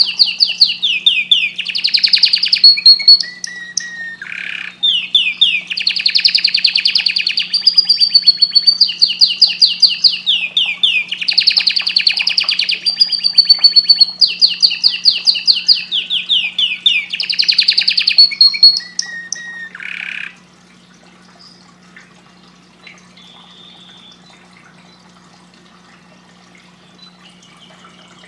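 Domestic canary singing: long, fast rolling trills of rapidly repeated high notes in phrases of a second or two, which stop about two-thirds of the way through. A faint steady low hum runs underneath.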